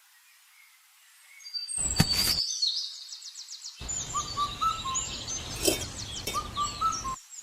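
Birds chirping and whistling in quick, short calls, with a short clink about two seconds in.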